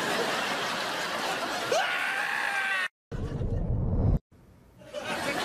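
Studio audience laughter over a man's scream, cut off abruptly about three seconds in. After a moment of silence comes a short, bass-heavy sitcom transition music sting lasting about a second.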